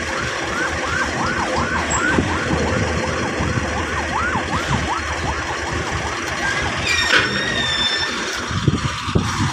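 A siren-like warning alarm warbling rapidly, several sweeps a second, over the steady running of heavy engines. The warble stops about five seconds in, and a brief high squeal rings out about seven seconds in.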